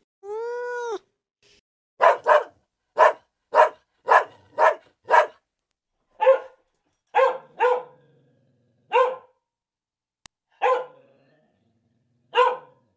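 A cat's single meow in the first second, then a dog barking: about thirteen short, sharp barks, some in quick pairs, at irregular intervals.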